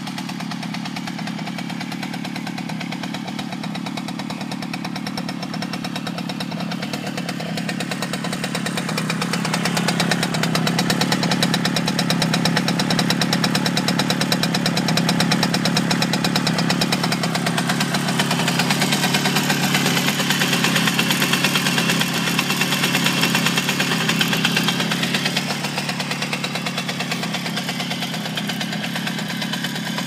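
Romet Ogar 205 moped's 50 cc single-cylinder two-stroke engine idling steadily. It grows louder about a third of the way in and eases back near the end.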